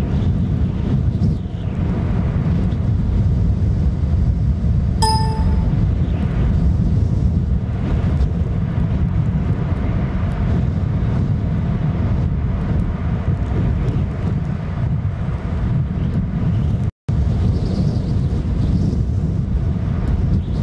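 Strong gusting wind buffeting the camera's microphone, a loud, steady low rumble. A brief ringing ding about five seconds in. The sound cuts out for an instant near the end.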